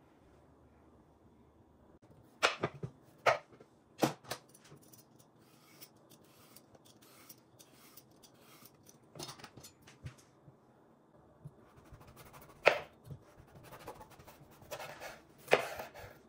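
Kitchen food-preparation handling sounds: sharp clicks and knocks, several close together about two to four seconds in, a single loud knock later and another cluster near the end, with soft rustling and scraping between.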